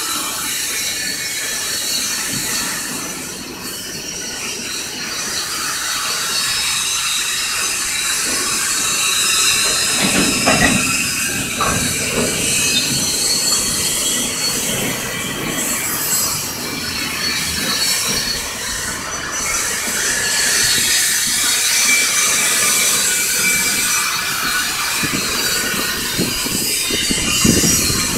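Freight train of open-top gondola cars rolling past, the steel wheels on the rail making a steady rumble with a high, continuous wheel squeal over it.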